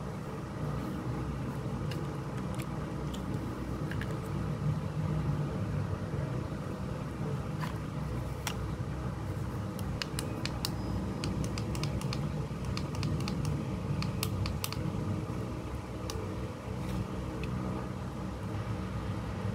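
Small handheld rechargeable fan running with a steady low hum, with scattered clicks and taps from its plastic body being handled and its buttons pressed, most of them clustered in the middle of the stretch.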